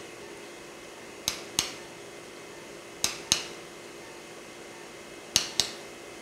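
Mallet tapping a microfracture awl into the bone of the greater tuberosity to make marrow vents: three pairs of sharp taps about two seconds apart, over a steady low hum.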